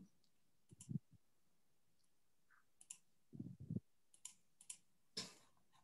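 Faint, scattered clicks and taps of a computer mouse and keyboard, irregular and a second or so apart, a few of them with a soft low knock.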